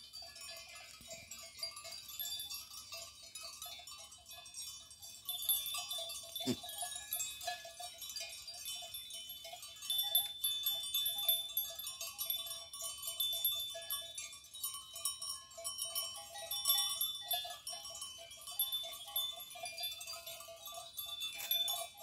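Bells on grazing livestock clinking irregularly, many short ringing tones overlapping, with a single sharp click about six and a half seconds in.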